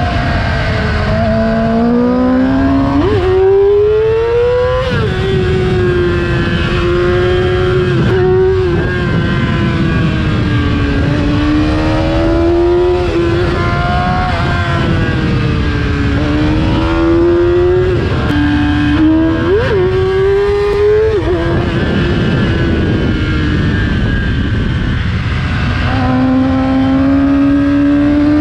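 Yamaha R6 inline-four engine through an Akrapovic exhaust, revving hard under acceleration. Its pitch climbs and drops back several times as it is run up through the gears, over a steady low rush of noise.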